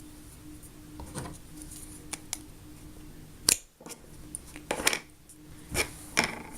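Handling noises from making a Play-Doh figure: small clicks, taps and short scrapes of plastic tools and dough on a hard surface, with a sharper clack about three and a half seconds in and a few more near the end.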